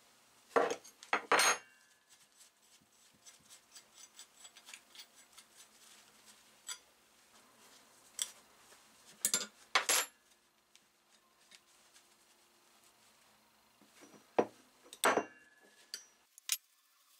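Steel open-end wrench clinking and scraping against the metal fittings of an old Borac blowtorch as they are unscrewed. There are short clusters of sharp clatter near the start, about ten seconds in and near the end, with light ticking between them.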